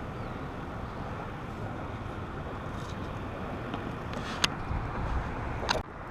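Steady outdoor wind rumble on the microphone, with two sharp clicks late on.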